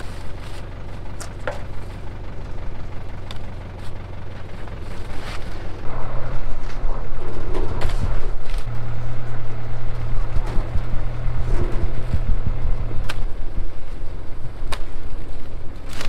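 Tractor engine running steadily, its low hum growing louder about six seconds in, with a few sharp knocks over it.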